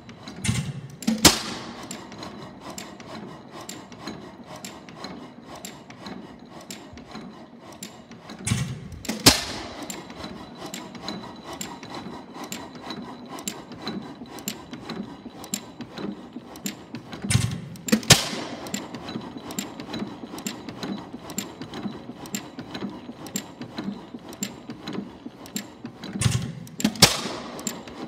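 6 HP tank-cooled Faribault single-cylinder gas engine running unloaded on its first run after restoration. It fires with two loud bangs close together about every nine seconds and coasts between them with steady light clicking.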